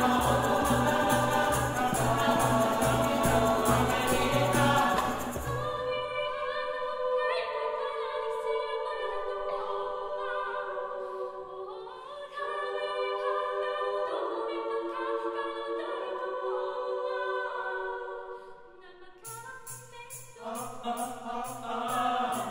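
Mixed choir singing a cappella over a steady hand-clapped beat. About five and a half seconds in the clapping drops away and the upper voices carry on with sustained chords; the clapped beat comes back near the end.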